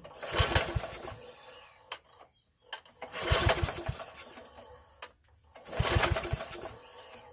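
Three pulls on the recoil starter of a Troy-Bilt 33-inch walk-behind mower's Briggs & Stratton engine, each a burst of the rope whirring out and the engine turning over a few quick strokes, then fading away. The engine does not fire.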